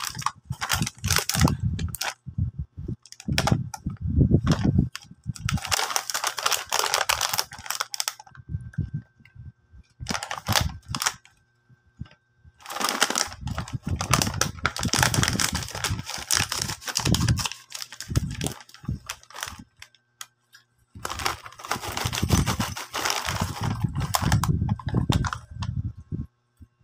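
Plastic snack bag of green pea puffs crinkling and crackling as it is handled, torn open and tipped out, in spells with short pauses; near the end the puffed snacks rattle into a ceramic bowl.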